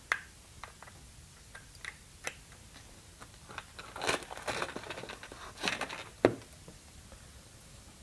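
Handling noise from a USB cable and a plastic power bank: a small click as the plug goes in, scattered light clicks and rustling as the power bank is moved, and a dull knock about six seconds in as it is set down.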